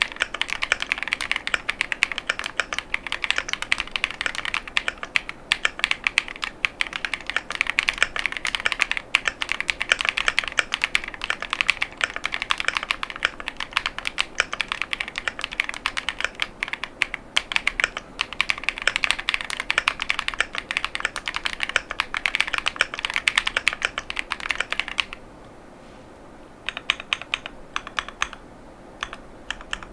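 Continuous fast typing on a KiiBoom Phantom 81 V2 mechanical keyboard with KiiBoom Crystal Linear 55gf linear switches and PC ASA-profile keycaps: a dense run of key clacks. About 25 seconds in the typing stops for a second or two, then resumes more sparsely.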